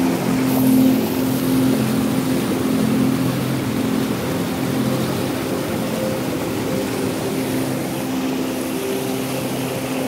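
Waterfall stream rushing and splashing over rocks: a steady, loud rush of white water.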